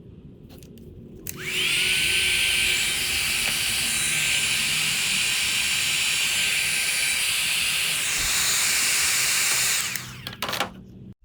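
Heat gun switched on about a second in, its fan motor spinning up with a short rising whine into a steady blowing hiss. It runs for about eight seconds, then is switched off and winds down, followed by a few clicks.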